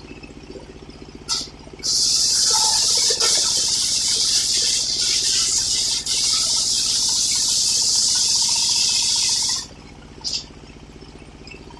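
Engine-driven home-built circular sawmill: the engine runs steadily while the blade cuts through old coconut-palm timber, a loud high hiss that starts about two seconds in and stops abruptly about eight seconds later, with a brief touch of the blade just before and just after the cut.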